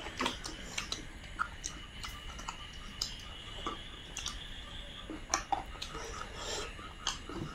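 Close eating sounds of two people eating rice and curry with their fingers: irregular short clicks and smacks of chewing and of fingers working the food.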